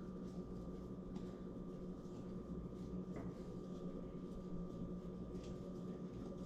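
Quiet room tone: a steady low hum with a thin high steady tone over it, and a couple of faint clicks.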